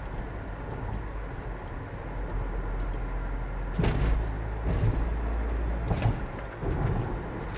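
Mazda CX-5 2.0 petrol engine pulling at low revs, between about 1700 and 2300 rpm, in a high gear, with a steady low drone. Starting about four seconds in, a rattling, gurgling noise comes through several times in short bursts. This is the unexplained noise that appears under load at low rpm.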